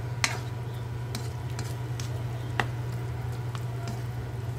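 Spatula stirring chicken pieces in a wok, with a few sharp clicks and scrapes of the spatula against the pan over a soft sizzle, and a steady low hum underneath.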